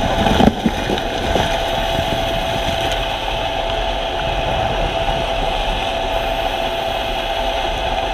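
Steady ship engine noise heard underwater: a constant hum with a steady high tone through it, and a few knocks about half a second in.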